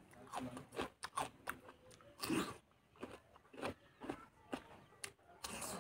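Close-miked chewing and biting: wet smacking with irregular crunches, as of fatty pork, onion and greens being eaten.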